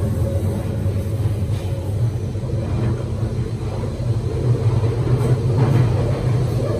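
Waterloo and City line 1992 Stock tube train running through a tunnel, heard from inside the carriage: a steady low rumble of wheels and running gear.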